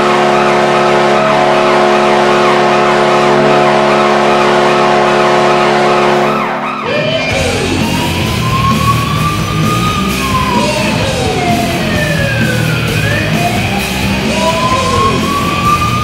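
Hockey goal horn blowing one long, steady chord that cuts off about seven seconds in, followed by a siren wailing up and down over rock music.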